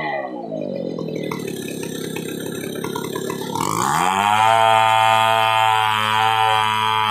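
Stihl 070 two-stroke chainsaw ripping a log lengthwise. The engine drops from full revs to a low idle at the start, idles for about three seconds, then revs back up to a steady high pitch about four seconds in as the cut resumes.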